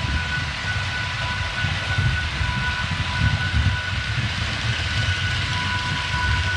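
HO-scale model TGV trains running on the layout: a continuous low rumble of wheels over the track, with a steady high whine held throughout.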